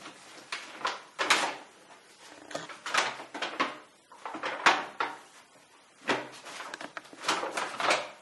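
Puppies scrabbling at and climbing on a cardboard box on a tiled floor: irregular bursts of rustling, scraping and knocking.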